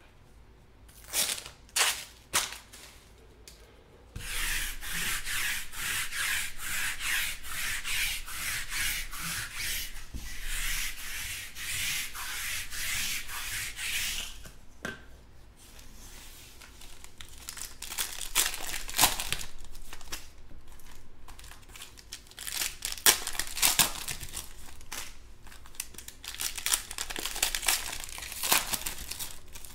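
A few short crackles, then a long stretch of rough rubbing, then the crinkling and crackling of a foil trading-card pack being handled and torn open by hand, with several sharp crackles in the second half.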